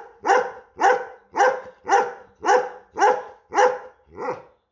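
German Shepherd-type dog barking in a steady run, about two barks a second, eight barks with the last one quieter. It is play barking, the dog wanting to be chased for the sock.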